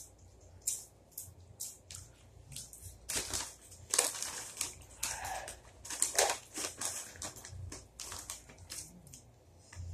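Crunchy chips being chewed close to the microphone: a run of irregular crunches, loudest about four and six seconds in.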